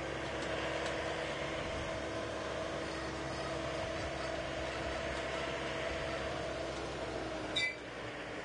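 Tourist road train running steadily with a constant motor hum and rumble, heard from a passenger wagon. About seven and a half seconds in, a brief sharp high-pitched squeak stands out, and the hum drops away just after.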